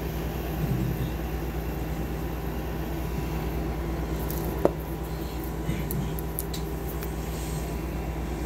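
Steady low hum, with one sharp click a little past halfway.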